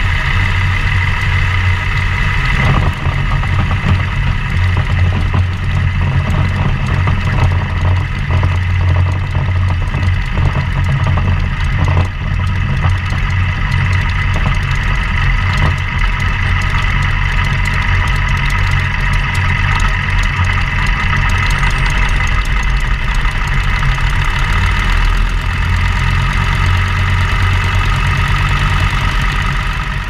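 Kinner radial engine of a Bird biplane running steadily at low power while the plane taxis on grass, with its propeller.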